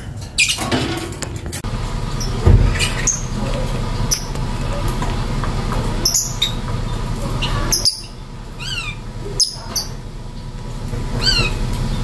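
Lovebird giving short, sharp chirps, with quick rising-and-falling calls about nine seconds in and again near the end, over a steady low background rumble. A dull thump about two and a half seconds in.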